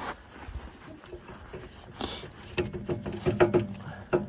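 Scattered metal clicks and knocks of a tractor PTO driveshaft being slid by hand onto the snowblower's input shaft. A low steady hum joins about two and a half seconds in.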